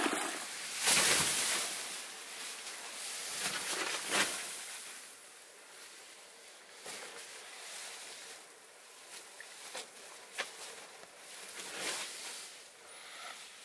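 Quiet outdoor hiss with scattered soft rustles and knocks. The loudest comes about a second in.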